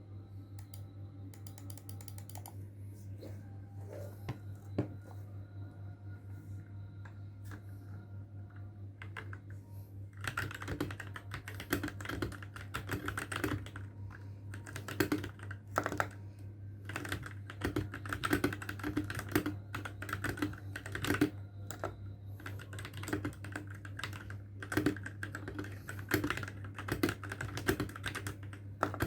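Royal Kludge RK61 mechanical keyboard with lubed switches being typed on: a few scattered keystrokes at first, then continuous slow typing from about a third of the way in, over a steady low hum.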